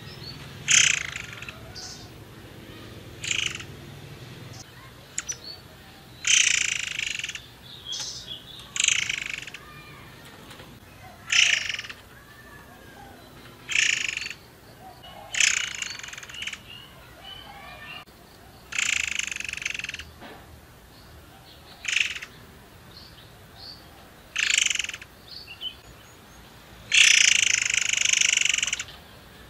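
Caged murai air songbird calling repeatedly in loud, short bursts about every two to three seconds, with a longer phrase near the end.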